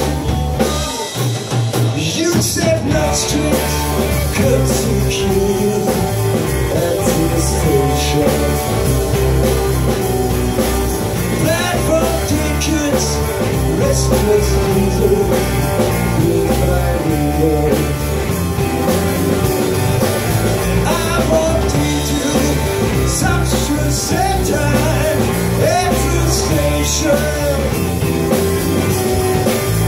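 Live rock band with electric guitars, bass and drum kit playing loud, with a singer's vocal over it. The bass and drums drop out briefly about a second in, then the full band comes back in.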